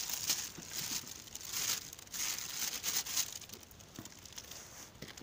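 Irregular crinkly rustling and crunching, louder for the first three seconds and fainter after.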